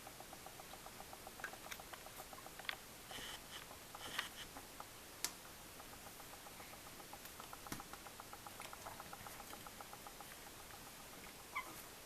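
Budgies making faint, soft sounds while preening each other: a quick, even run of soft ticking that stops about a third of the way in and starts again after the middle, with scattered clicks and a few brief high chirps.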